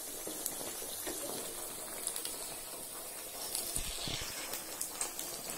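Potato sticks deep-frying in hot oil in a pan: a steady sizzle with scattered crackles. A few low thumps come about four seconds in.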